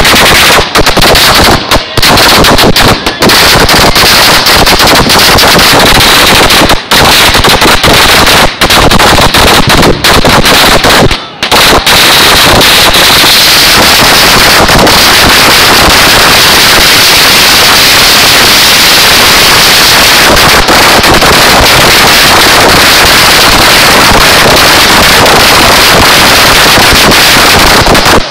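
Strings of firecrackers going off on the pavement in rapid, continuous bangs, loud enough to overload the phone's microphone into distortion. The bangs come with short breaks at first, then run together without a gap from about twelve seconds in.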